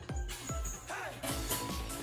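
Background music with a steady fast beat.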